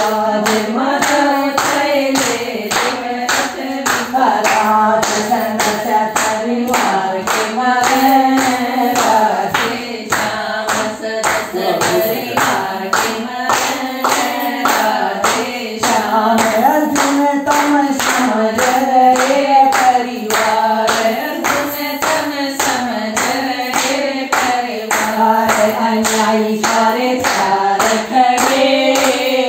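A Krishna bhajan being sung, with a group of women clapping along in a steady rhythm of about two claps a second.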